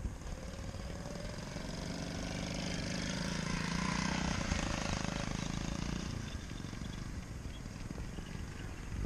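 Small gas engine on a custom-built motorized bicycle riding past. Its note swells as the bike approaches, is loudest about four seconds in as it passes, then fades as it rides away across the field.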